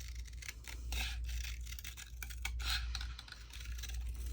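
Scissors cutting paper: a run of irregular crisp snips with light paper rustling.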